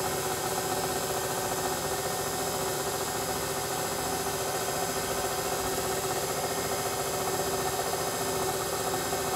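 Electric kitchen mixer running steadily with an even motor hum, mixing cake batter.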